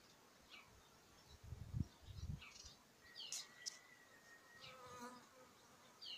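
Honeybees from a swarm buzzing as they fly past close to the microphone: a few brief low hums about one and a half to two and a half seconds in, and a higher, clearer buzz near the five-second mark. Birds chirp briefly in between.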